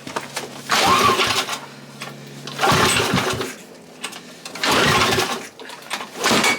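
Tecumseh H35 single-cylinder engine being pull-started: about four pulls roughly two seconds apart, each a short burst of cranking, the last one shorter, without the engine catching. One pull kicks back against the starter cord.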